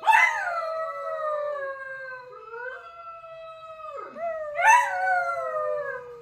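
Dog howling: a long howl that starts loud and slides slowly down in pitch, then a second loud howl about four and a half seconds in that also falls away.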